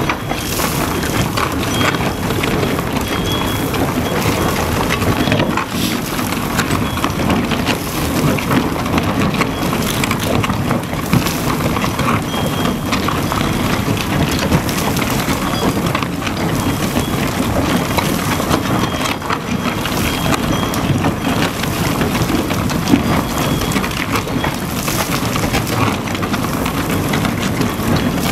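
Herrenknecht tunnel boring machine's cutter wheel grinding through the shotcrete face of the tunnel portal: a steady, loud rumble with a constant crackle of crumbling concrete and rock pouring down.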